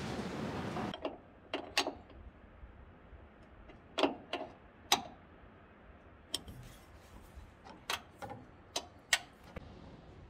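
Scattered sharp clicks and taps, about ten at uneven intervals, from hand tools and metal fittings as wiring is connected at an old loader's dashboard. A steady rushing noise cuts off suddenly about a second in.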